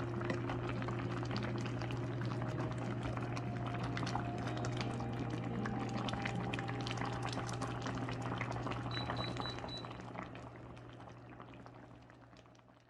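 A pot of cabbage doenjang soup boiling, with a dense run of small bubbling pops over a steady low hum. It fades out over the last few seconds.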